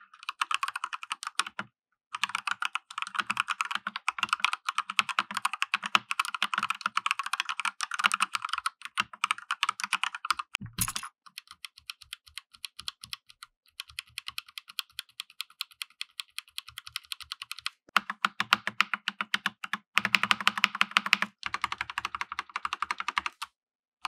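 Typing on an Akko 5108 RGB mechanical keyboard with Akko pink jelly linear switches (45 g operating force): a fast, continuous run of keystrokes, soft and fairly quiet. Midway it turns lighter and thinner for several seconds, then fills out again, with a short pause near the start and another near the end.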